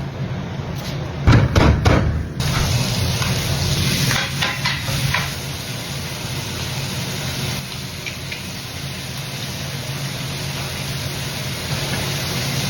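Ground sirloin beef and Italian sausage frying in a hot pan: a few knocks of a utensil against the pan about a second in, then a steady sizzle.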